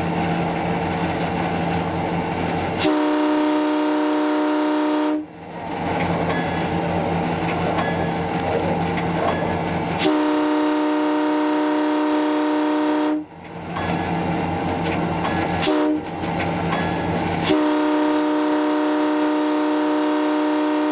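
Air horn of an ex-CN EMD FP9A diesel locomotive blowing the grade-crossing signal: two long blasts, one short, then a final long one. A steady diesel hum and the rumble of the moving train run underneath.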